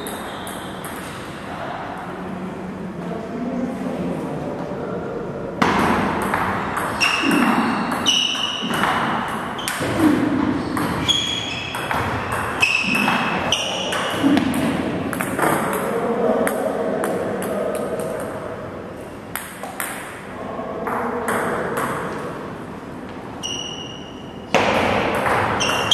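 Table tennis ball struck back and forth in rallies: quick sharp pings off the bats and table. The hitting starts about six seconds in, eases off for a few seconds past the middle, and picks up again near the end.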